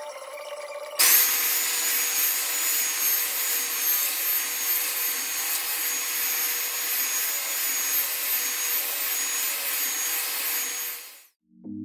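Handheld belt sander running over a spalted maple panel, sanding back the blue filler, with a vacuum pulling dust through a hose on the sander's dust port. The sound is a steady, dense rush with a constant high-pitched whine. It starts abruptly about a second in and cuts off shortly before the end.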